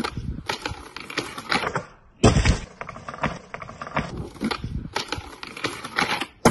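Skateboard on concrete: wheels rolling and a run of sharp, irregular clacks and slaps as the board pops, lands and knocks against a concrete ledge. The sound breaks off and restarts abruptly about two seconds in and near the end.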